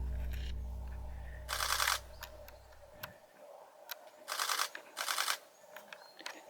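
Camera shutter firing in rapid continuous-shooting bursts, three bursts of fast clicks about a second and a half, four and a quarter, and five seconds in. Background music fades out over the first three seconds.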